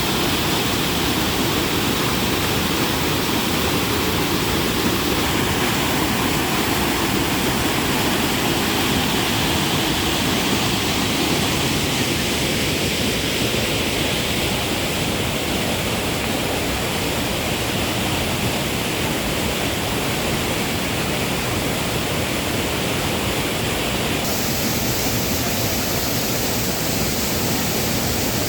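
Water rushing over a small waterfall in a river, a steady, unbroken noise.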